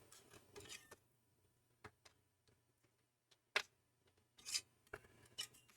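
A few faint, scattered clicks and ticks of a screwdriver turning the heatsink screws on a Mac Pro 5,1 processor tray, a half turn at a time; the loudest click comes about three and a half seconds in.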